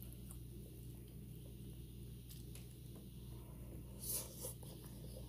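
Quiet eating with the fingers: faint clicks of food being handled over a low steady hum, then a short crackly mouth noise about four seconds in as a handful of food goes into the mouth.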